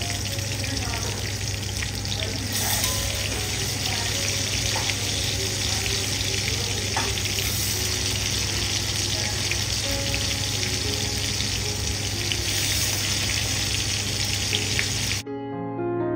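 Marinated chicken pieces shallow-frying in hot oil in a wide karahi, a steady sizzle full of small crackles and pops. The sizzle cuts off suddenly about fifteen seconds in and piano music takes over.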